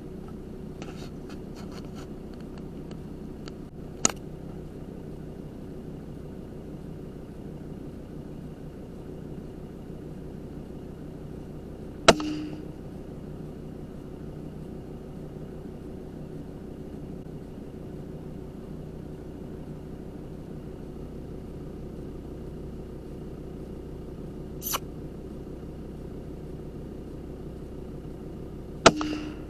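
Rifle shots at rabbits, four sharp cracks heard through a scope-mounted night-vision recorder, the loudest about twelve seconds in and near the end, over a steady hum.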